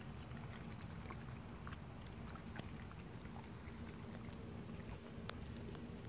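A chocolate Labrador nosing and crunching about in grass close by: scattered small clicks and crunches over a steady low rumble.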